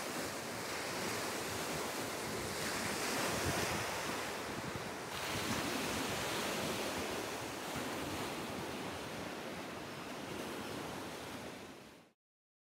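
Sea surf washing steadily on the beach below, with wind blowing across the microphone. The sound changes suddenly about five seconds in and fades out near the end.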